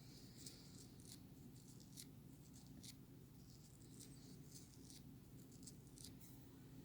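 Near silence: room tone with faint, irregular light ticks.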